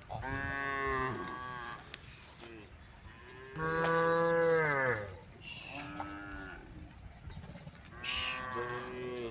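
Cows mooing: four drawn-out moos in turn, the longest and loudest about four seconds in, sinking in pitch as it ends.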